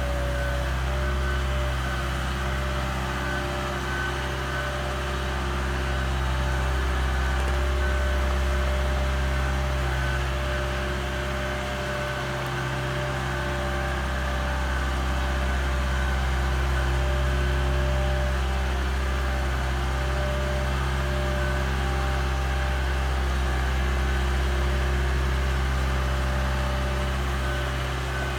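Engine of a mobile boat travel lift running steadily as the lift carries a sailboat in its slings, with a low even hum that swells a little now and then and a higher whine that comes and goes.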